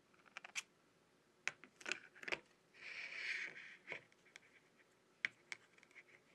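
Faint clicks and taps of an opened iPhone 12 Pro being handled as its display is swung open from the frame, with a brief scraping rub about three seconds in.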